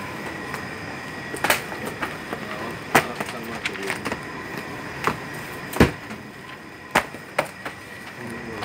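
Cardboard perfume boxes and covers handled by hand on a worktable: scattered sharp knocks and taps, about six over several seconds, the loudest a little past the middle, over steady workshop room noise.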